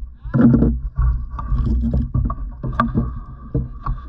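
Steady low wind rumble on the microphone, with irregular knocks and clatters as a caught octopus is handled in a fishing kayak.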